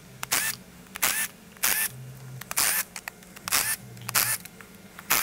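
Cordless power driver running in short bursts, about seven in a row, as it zips out the 8 mm intake manifold bolts on an LS V8.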